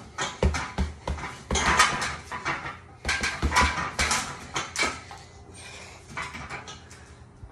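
Gloved punches thudding into a hanging heavy bag in quick bunches, its chains jingling with each hit. The hits tail off about five seconds in.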